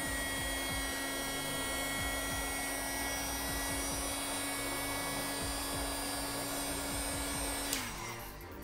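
Heat gun blowing hot air, its fan motor running with a steady whine and rushing airflow as it shrinks heat-shrink tubing over a wire connector. It is switched off near the end, and the motor winds down in pitch and stops.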